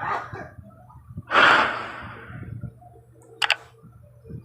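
A loud whoosh of noise, then about two seconds later a quick double click. These are the sound effects of a subscribe-button animation.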